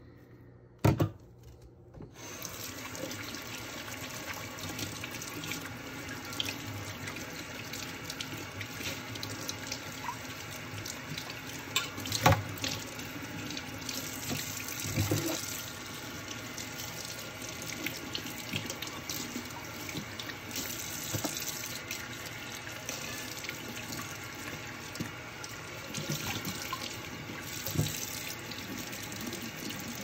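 Kitchen faucet running into a stainless steel sink as dishes are rinsed under the stream, turning on about two seconds in after a single knock. A few sharp knocks of dishes against the sink stand out, the loudest near the middle.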